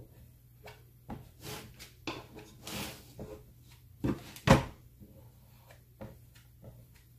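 Objects being handled and set down: a string of knocks, bumps and short scrapes, the loudest a sharp knock about four and a half seconds in.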